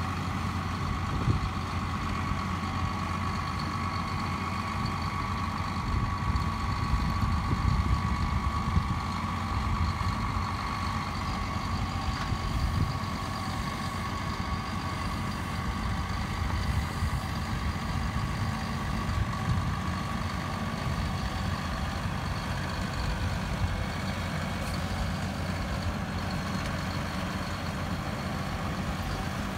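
Engine of a 2014 RoGator RG1300 self-propelled sprayer running steadily, with a steady high whine over the low rumble. It swells slightly a few seconds in while the boom is being worked.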